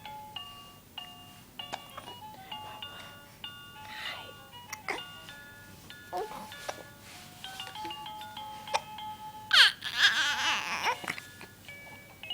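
A simple chiming tune of steady single notes plays throughout, while a baby boy makes vocal sounds. The loudest is a squeal with sliding pitch about ten seconds in.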